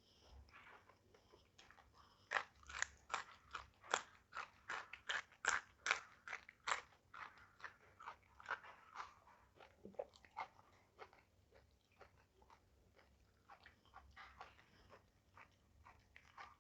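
A person chewing crunchy food close to the microphone: a run of loud crisp crunches about three a second, then softer, wetter chewing from about 7 seconds on.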